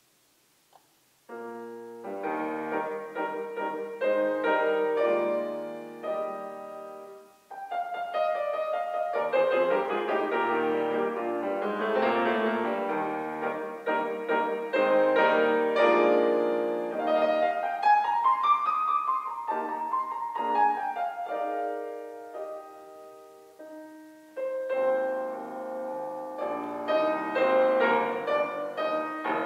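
Solo concert grand piano playing classical music. It starts after about a second of silence, breaks off briefly around seven seconds in, and has a run that climbs and falls back past the middle.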